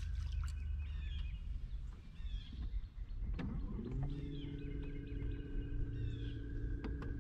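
A Minn Kota Ultrex electric trolling motor spins up about halfway through, rising briefly in pitch and then holding a steady hum. Wind rumbles on the microphone throughout, and birds chirp.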